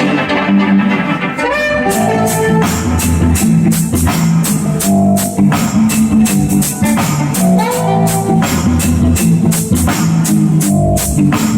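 Recorded music played loud over a sound system, with a steady drum beat and a heavy bass line.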